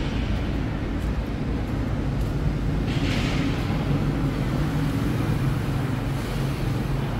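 Steady low mechanical hum over a constant background drone in an enclosed underground car park, with a brief hiss swelling about three seconds in.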